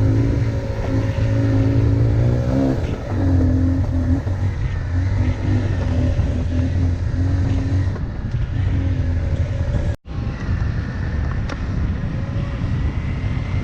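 Motorcycle engine running steadily, its pitch rising briefly about three seconds in, with a short dropout near the end where the sound cuts.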